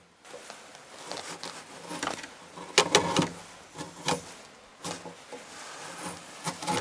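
A chisel paring and shaving the wood along the edge of a freshly cut log notch: a string of short, irregular scraping cuts, the loudest a little under three seconds in.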